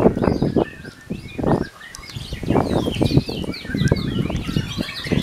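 White-rumped shama singing in its cage: a fast, varied run of chirps and whistling notes, with a short pause about two seconds in. Bursts of low noise lie beneath the song.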